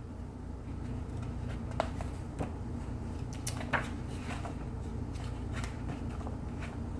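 A paperback picture book being handled and opened, its pages turned: a few soft clicks and rustles over a steady low room hum.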